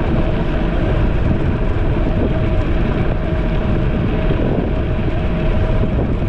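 Wind and riding noise from a seated electric scooter in motion, buffeting the camera's microphone with a steady rumble. A faint steady tone runs underneath.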